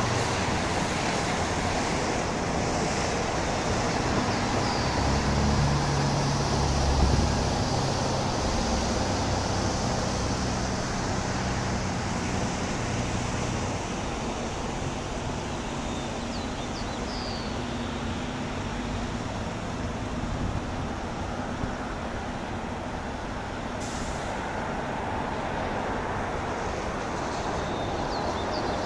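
Steady outdoor engine rumble, swelling to its loudest about six to seven seconds in and then easing off.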